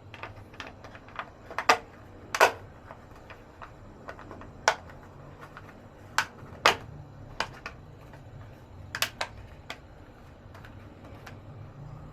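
Irregular sharp clicks and knocks as the cover of an instant water heater is handled and fitted back over the unit, the loudest about two and a half seconds in, again near the middle, and around nine seconds in.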